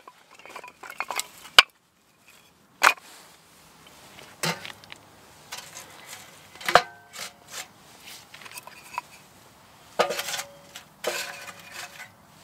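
Split wooden kindling clacking together and knocking against the steel firebox of a Frontier tent stove as it is loaded by hand: a string of sharp wooden clacks, a few with a brief metallic ring.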